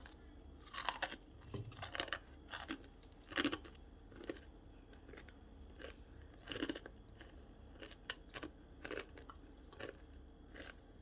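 A person biting into and chewing a piece of Doritos-crusted fried chicken, with irregular crisp crunches about once a second.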